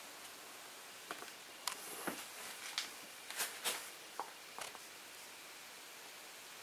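Faint scattered clicks and rustles around a wire-mesh basket holding a bat, most of them between one and five seconds in, over a steady low hiss.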